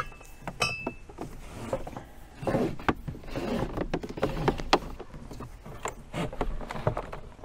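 Handling noise from a clear vinyl hose being fed into a plastic tote: scattered knocks, taps and rubbing of hose against plastic, with a short squeak near the start.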